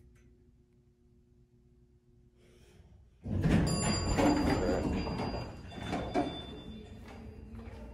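Faint steady hum inside a Dover elevator car. About three seconds in, the car doors slide open with a sudden loud clatter and thin high tones over it, fading over the next few seconds.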